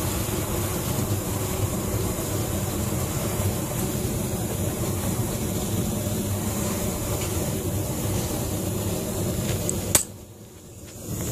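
Steady rushing noise of compressed air blowing powdered dry fuel out of a copper line, where it burns in a large open flame. About ten seconds in comes a sharp click, and the noise drops away for about a second before returning.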